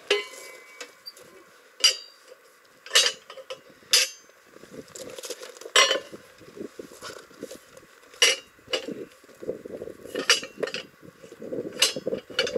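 Sharp metal clinks and clanks, about seven of them at uneven intervals one to two seconds apart, each with a short high ring, from metal parts being handled.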